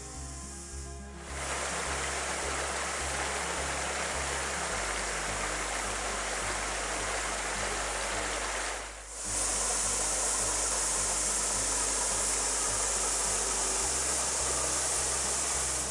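Rushing water of a rocky mountain stream, starting about a second in. After a brief dip about nine seconds in, a small cascade pours into a pool, louder and hissier. Background music with a low, pulsing bass runs underneath.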